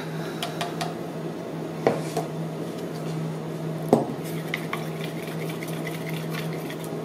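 A stirrer moving through melted soap base in a plastic pitcher, tapping and scraping against its sides, with two sharper knocks about two and four seconds in. A steady low hum runs underneath.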